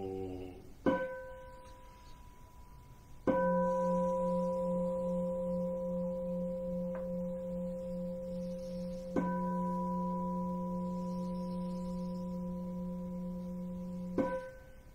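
Large Buddhist bowl bell (keisu) struck with a wooden striker between chants. A short strike about a second in dies away quickly. Two full strikes a few seconds apart ring on steadily with a slow wavering hum, and a last strike near the end is followed by the ringing falling away.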